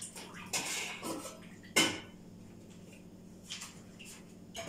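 Metal kitchenware clattering: a few knocks and clinks of pots and utensils, with one sharp clank a little under two seconds in.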